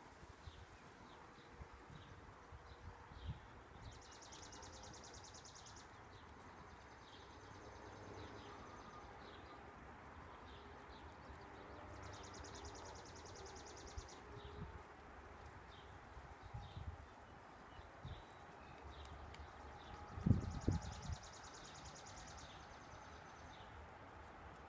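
Quiet outdoor ambience: a high, rapidly pulsing trill comes three times, each about two seconds long and some eight seconds apart, over faint steady background noise. About twenty seconds in there is a brief low rumble, the loudest sound.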